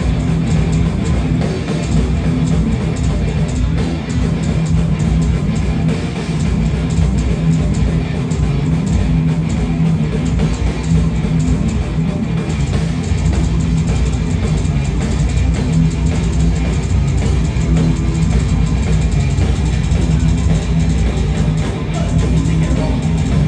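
Live heavy metal band playing loud, with electric guitar and drum kit driving steadily through the whole stretch.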